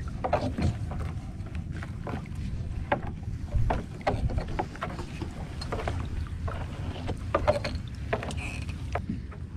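Wet fishing net being hauled by hand over the side of a small boat: irregular splashes, drips and small knocks as the net comes up out of the water, over a steady low rumble of wind and water.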